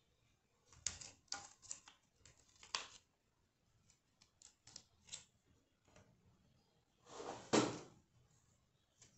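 Sheets of paper rustling and crinkling as they are folded and creased by hand, in short crackly bursts: a cluster near the start, a few light crackles in the middle, and a longer, louder rustle about seven seconds in.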